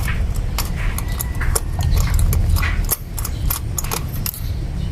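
Irregular metallic clicks and clinks of a ratchet and socket being worked on the spark plugs, over a steady low hum.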